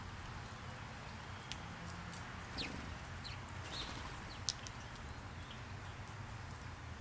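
Sharp clicks and taps of animals feeding on scattered birdseed and peanuts on pavement, the two loudest about one and a half and four and a half seconds in. A few short, high falling bird chirps come around the middle, over a steady low outdoor rumble.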